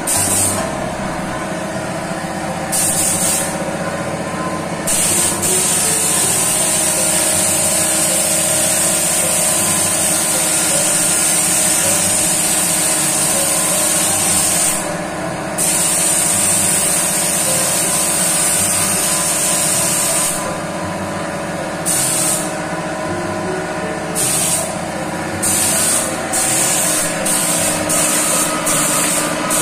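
Gravity-feed paint spray gun hissing as it sprays paint onto car bodywork: two short bursts, then long trigger pulls of about ten and five seconds, then a run of short quick bursts near the end. A steady machine hum runs underneath.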